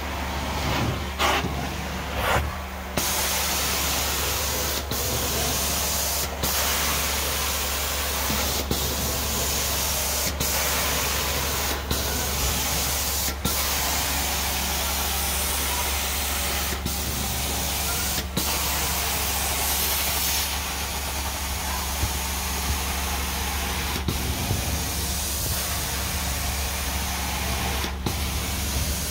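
Carpet-cleaning extraction wand spraying hot water into carpet and vacuuming it back up: a steady loud hiss over a low machine hum, breaking off for an instant every second or two as the strokes change.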